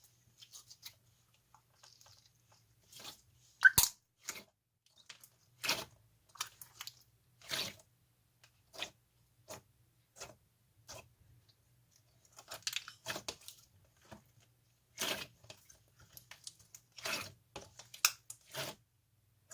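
Ice slime being pressed and pulled by hand, its hardened crust crackling and crunching in irregular bursts, with one sharp, loud crack a few seconds in.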